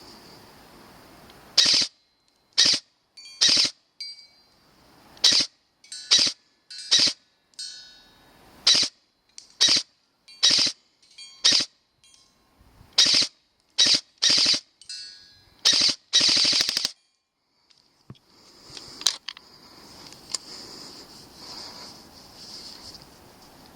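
Airsoft gun firing at targets: about twenty sharp shots, roughly one a second, with a longer run of shots near the end.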